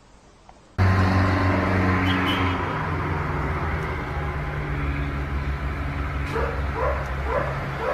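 A steady engine hum starts abruptly about a second in. Near the end a dog gives a quick run of short, rising yips, about two a second.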